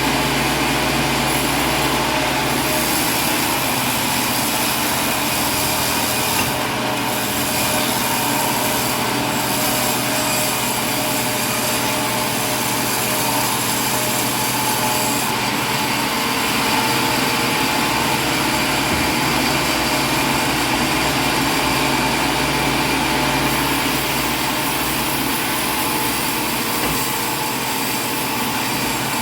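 A machine running steadily: a continuous drone with several fixed tones, with no change in speed.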